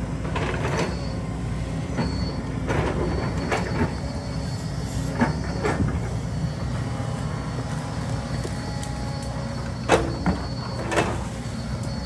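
Heavy excavator's diesel engine running steadily, with scattered metal clanks and squeals from the machine working, the loudest about ten seconds in.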